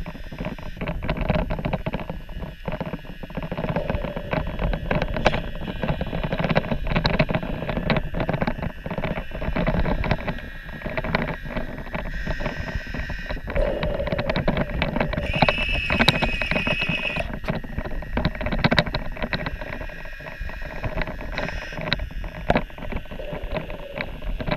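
Electric drive motor of a small radio-controlled toy submarine running, heard underwater: a steady whine over a dense crackle of clicks. About fifteen seconds in, a higher whine joins for about two seconds.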